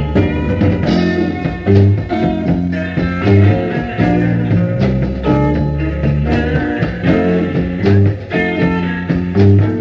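A band playing a blues song live: guitar over a repeating bass line, with a steady beat of drum hits.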